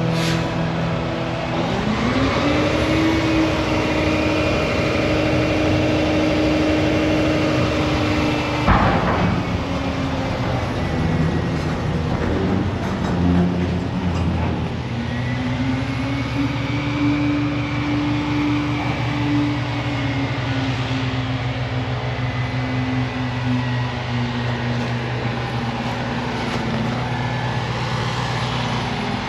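A heavy machine's engine revving up and holding high revs with a whine. After a sharp knock about nine seconds in it eases down, then revs up again about fifteen seconds in and settles back down near the end.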